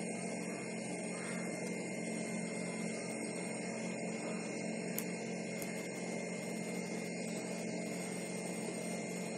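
Steady low hum with a haze of hiss as room tone, and one faint click about five seconds in.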